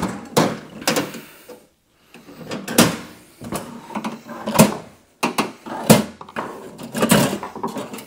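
Sharp clicks and knocks from the latches and cover of a portable all-in-one diesel heater's casing as it is unlatched and handled to open it.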